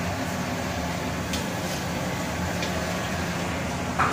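Steady low machine hum with an even hiss, the continuous drone of background machinery such as ventilation, with a couple of faint ticks.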